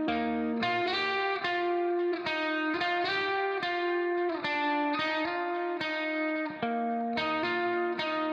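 Background music: a plucked guitar melody, notes picked in a steady rhythm about twice a second.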